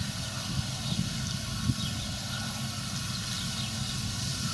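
New Holland combine harvester running steadily while harvesting grain, a constant engine drone with the noise of its working machinery.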